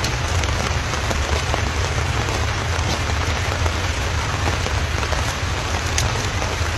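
Steady hiss of rain falling, with a low rumble underneath.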